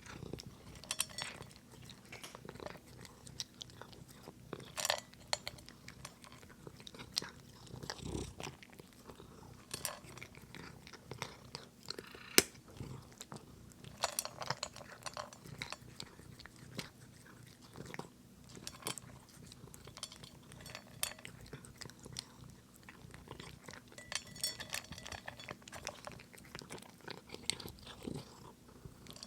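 A cat crunching dry kibble: irregular crisp crunches and clicks throughout, one especially sharp crack about twelve seconds in, over a low steady purr.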